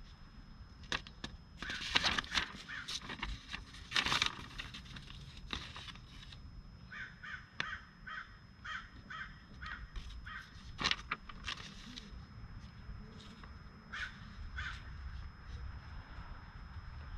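A bird calling in a run of short, evenly spaced calls, about three a second, with a few more calls later. A few louder brief noises stand out, about two and four seconds in.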